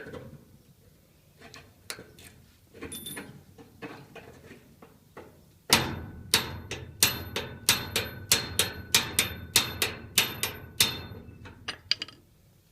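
Light metallic clicks and rattles from a key jiggled in a seized Master Lock padlock. About five seconds in comes a quick run of sharp metal-on-metal taps on the padlock, about three a second, each with a short ring, struck to free the stuck mechanism.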